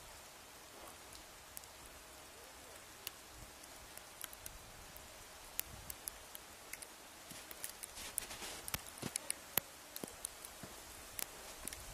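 Scattered drops pattering and ticking on a nearby surface, sparse at first and growing denser in the second half, over a faint steady hiss.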